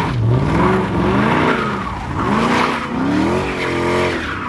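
Car engine revving hard, its pitch rising and falling in long swings, while the tyres spin and squeal on the asphalt of a parking lot, as in a burnout or donuts.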